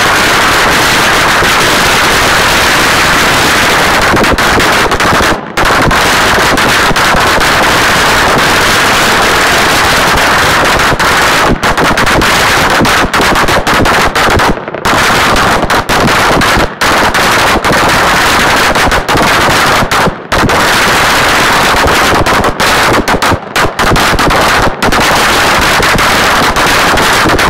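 A 100,000-shot roll of Chinese firecrackers going off in a loud, continuous rapid-fire crackle of bangs, with a few split-second gaps.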